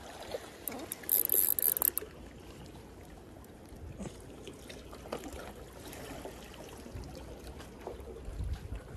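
Seawater lapping and trickling among concrete tetrapod blocks, with scattered small ticks and a brief loud hiss about a second in.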